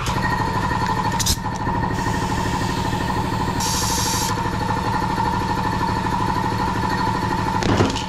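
Small air compressor running with a steady, rapidly pulsing drone as it inflates a freshly hot-patched inner tube, with a short hiss of air about three and a half seconds in.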